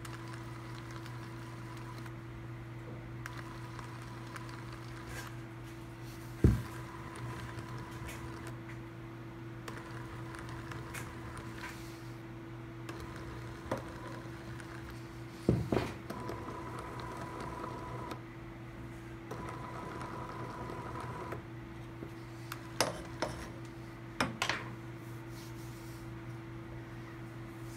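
NEMA17 stepper motor driving a 3D-printed two-stage cycloidal gearbox: a steady hum, with a faint high whine that starts and stops several times as the motor runs and pauses. A few sharp knocks stand out, the loudest about six seconds in and another near the middle.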